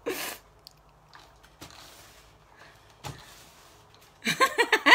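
Faint handling noises of hands pressing paper down on a countertop: a short rush of rubbing noise at the start, then two soft knocks. A woman starts talking near the end.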